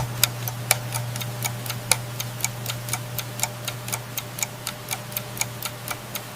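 Wristwatch ticking steadily, about four ticks a second, over a steady low hum.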